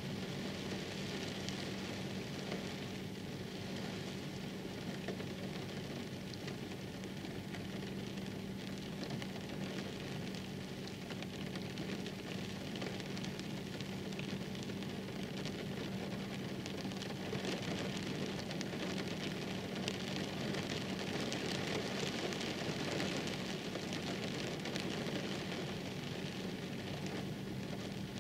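Steady rain falling, with individual drops ticking through it, over a steady low hum.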